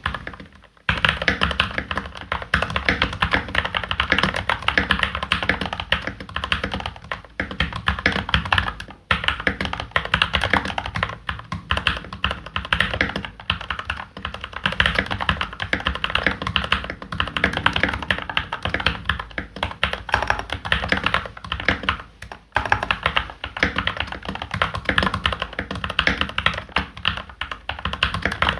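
Fast continuous typing on an MK870 mechanical keyboard with Gateron Milky Yellow Pro linear switches and double-shot PBT keycaps, a dense run of keystroke clacks with a few brief pauses.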